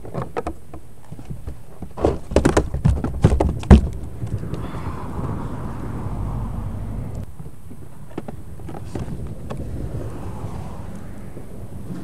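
A quick run of knocks and thumps on the kayak and its gear, loudest about three and a half seconds in, followed by a soft rushing noise for a few seconds.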